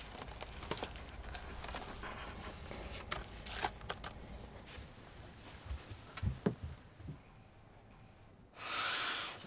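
Small clicks, taps and rustles as fingers press the keys of a coffee-soaked laptop keyboard and a cup is handled, with a few soft knocks, then a short hiss near the end.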